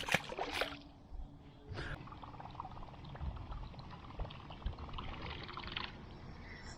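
Water trickling and dripping close by, a crackling patter of fine drops, after a few sharp knocks in the first second.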